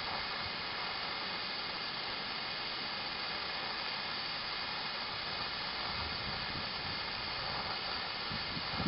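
Torch flame hissing steadily as it heats glue-lined heat-shrink tubing over a 2/0 cable ring terminal.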